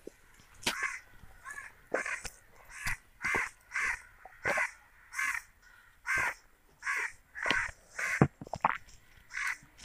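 A crow cawing over and over, about one and a half caws a second, with a few sharp clicks in between.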